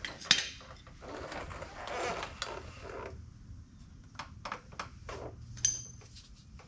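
Wrench clinking and scraping against the U-joint strap bolts of a truck driveshaft. About three seconds of rubbing and scraping, then a run of sharp, irregular metallic clinks, one ringing briefly.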